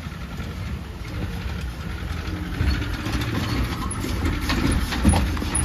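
Maruti Gypsy 4x4 engine pulling in first gear up a steep rocky track, getting louder as the vehicle comes close, with tyres crunching and knocking over loose stones near the end.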